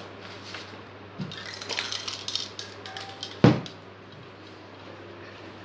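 Paper sheets rustling and crinkling as they are handled and laid out on a table, then a single sharp knock about three and a half seconds in.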